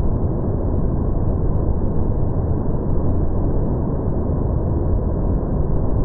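Fukuroda Falls in heavy rainy-season flow: a steady, loud rush of falling water with nothing above the low-mid range. The recording is slowed down with the 240 fps slow-motion footage, which lowers it to a deep, dull rumble.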